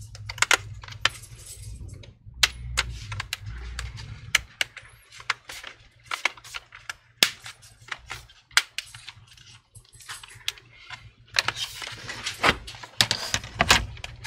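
Plastic clicks, taps and knocks of a gaming laptop's case being handled and turned over on a desk, with a dense run of clicks near the end.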